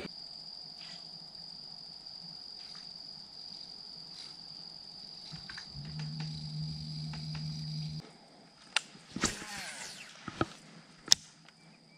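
Insects buzzing steadily at one high pitch. A low hum joins about six seconds in and cuts off at eight, and sharp clicks and knocks follow in the last four seconds.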